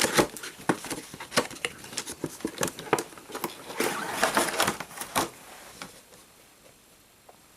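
Cardboard and plastic action-figure packaging being handled: a run of crinkles, rustles and sharp plastic clicks as the tray is worked out of the box, dying down after about five seconds.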